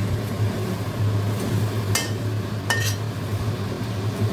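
A utensil scraping and clinking against a pan while vegetables are stir-fried: a sharp clink about two seconds in and a couple more shortly after, over a steady low hum.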